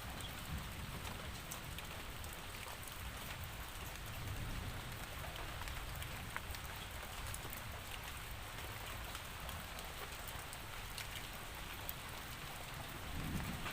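Steady rain falling, with scattered drops ticking on a surface over a low rumble.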